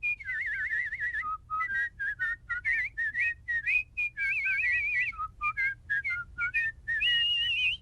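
Lip whistling of a quick, lively tune: short notes hopping up and down, broken by fast warbling trills, with a steadier high note held near the end.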